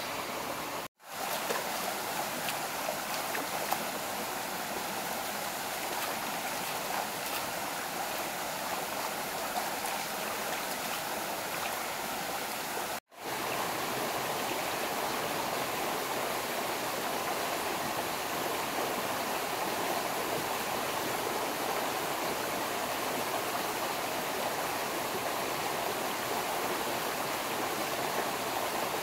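Stream water running steadily, a continuous rushing; the sound drops out to silence twice for a moment, about a second in and again near the middle.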